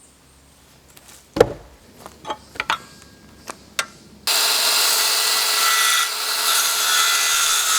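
A few knocks and taps of wood being handled, then about four seconds in a power saw starts cutting wood with a loud, steady noise.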